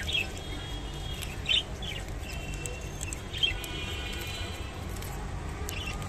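Clearwing budgerigars chirping and chattering: several short sharp chirps with a soft, thin warbling chatter between them, over a steady low background hum.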